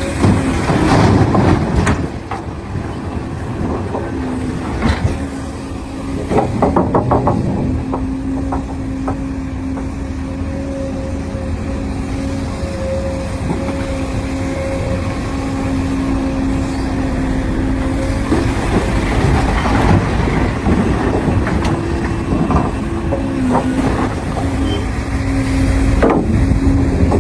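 Cat 395 excavator's diesel engine and hydraulics running under load with a steady hum, shifting slightly in pitch, broken by metallic clanks and knocks about a second in, again around five to seven seconds, and near the end.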